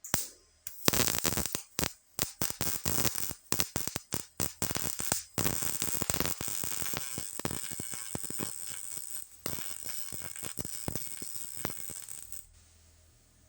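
Welder tack-welding a sheet-steel patch panel into a pickup's bedside: many short crackling bursts of arc in quick succession, then a longer steady crackle with a brief break, stopping shortly before the end.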